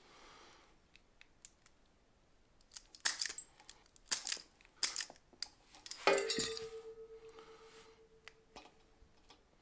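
Wire stripper clicking and snapping as it strips insulation off ceiling fan wires, several sharp clicks. About six seconds in, one louder metallic clack is followed by a ringing tone that fades over a few seconds.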